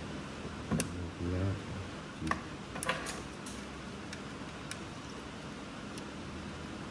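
A few sparse, light clicks and taps as a soldering iron and a small metal clamp work at a small RC car motor and its pinion gear, with a brief mumbled word about a second in.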